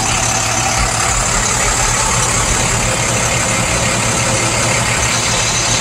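International crash truck's engine idling steadily, heard close up beside the truck.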